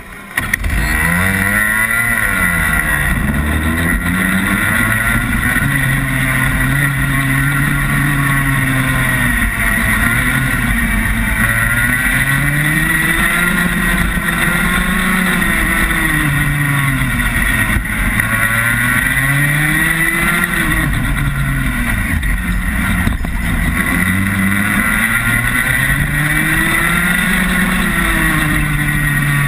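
Rotax Max 125 cc single-cylinder two-stroke kart engine heard from an onboard camera. It revs up sharply about half a second in as the kart pulls away, then rises and falls in pitch over and over as the driver accelerates along the straights and lifts off for the corners.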